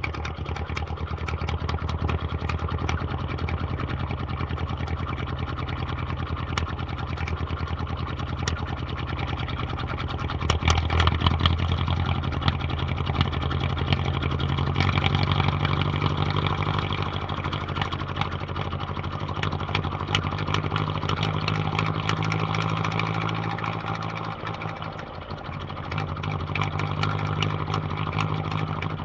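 Vintage car engine running steadily as the car drives, its firing pulses giving a fine, even throb. It swells louder about ten seconds in and dips briefly near the end.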